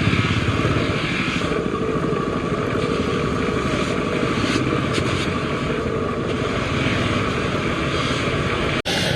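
A motor running steadily, a dense mechanical drone with a fast even rhythm. It cuts out for an instant near the end and resumes.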